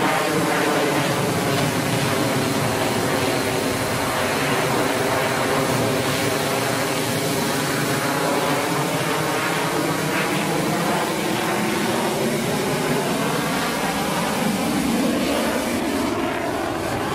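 Aero L-39 jet trainer's turbofan engine and rushing air heard inside the cockpit in flight: a steady loud drone with a whine whose pitch slowly drifts up and down.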